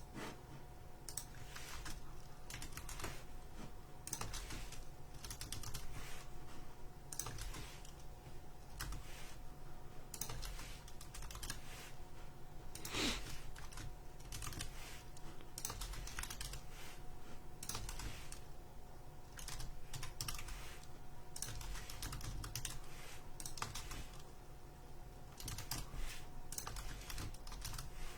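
Computer keyboard typing: short key clicks at an irregular pace, with a faint steady tone underneath.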